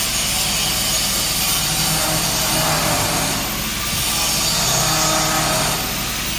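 Steady mechanical hum and whir of running machinery in a workshop, with a faint held tone coming and going midway.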